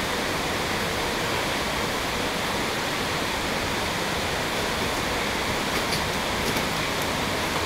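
A steady, even rushing hiss at constant level, with a few faint short rustles about six seconds in.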